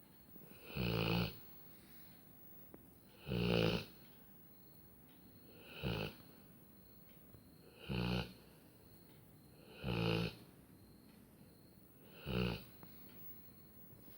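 Labrador retriever snoring in its sleep: six snores about two seconds apart, each lasting about half a second.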